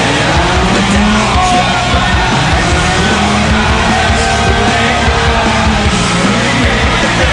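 Loud rock music with yelled vocals over a steady drum beat.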